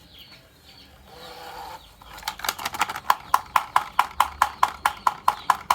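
Marble run: a marble rolling with a soft rumble, then from about two seconds in a steady run of sharp wooden clacks, about five a second, as marbles knock through a wooden track.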